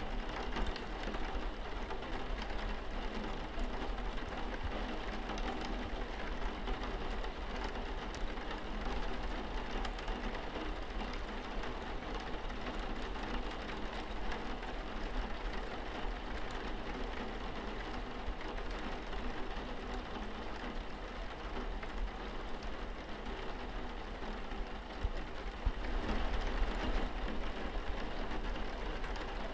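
Steady rain pattering on a window pane, an even, dense hiss that grows slightly louder in the last few seconds.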